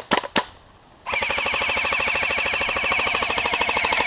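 Airsoft guns firing: a few single shots near the start, then from about a second in a long, rapid, even burst of full-auto fire with a steady whine under it.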